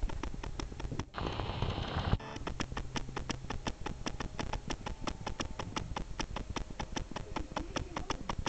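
A cardboard graham cracker box rustling and scraping as a dog moves with her head stuck in it, with a burst of rustling about a second in. Underneath runs a steady string of light ticks, about five a second.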